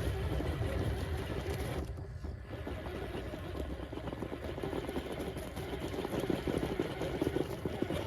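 1/6-scale RC rock crawler's electric motor and geared drivetrain running as it crawls over rough ground, with a short lull about two seconds in.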